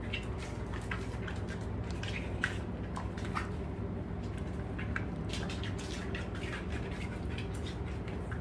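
Scattered light clicks and ticks from dogs' claws and paws moving on vinyl flooring, over a steady low hum.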